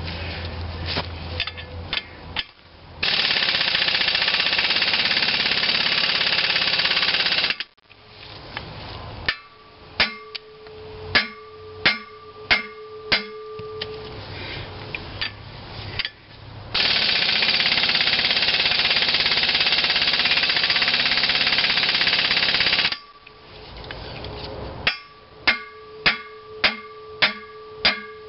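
Hammer blows on the steel puller and flywheel hub of a McCormick-Deering Type M hit-and-miss engine, each striking with a metallic ring, come in three groups. Between them are two long, even bursts of an air impact wrench driving the puller's bolt. Both are trying to jar loose a seized gib key that is not moving.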